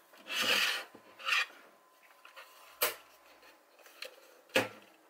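A plastic Instax Wide 300 camera body scraping on a wooden workbench and being handled: two short rubbing scrapes in the first second and a half, then two sharp plastic clicks, one near the middle and a louder one near the end.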